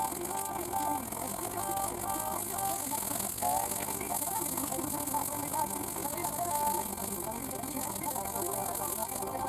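A small radio playing a voice or tune over a steady hum and static.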